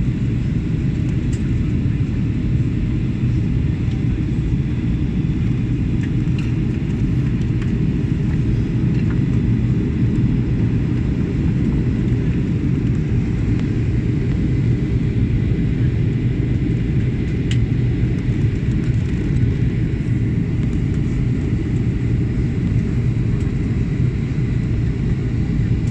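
Steady low rumble of a jet airliner's engines and rushing air, heard inside the passenger cabin as the plane descends to land.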